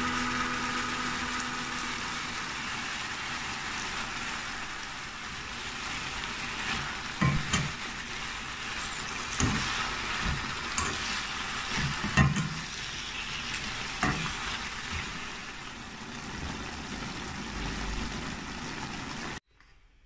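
Cabbage sizzling as it is stir-fried in a wok, with a spatula knocking and scraping against the pan about half a dozen times. The sizzle cuts off suddenly near the end.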